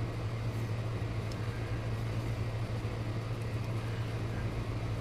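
A steady low hum with an even background hiss, broken only by a few faint small ticks.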